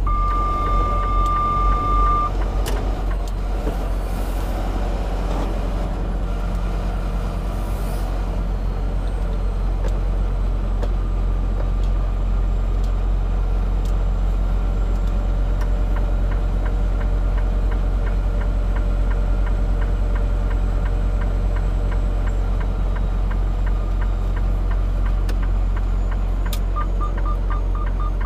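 Semi truck idling with a steady low rumble, heard from inside the cab. A single electronic beep about two seconds long at the start, and a rapid string of short beeps beginning near the end.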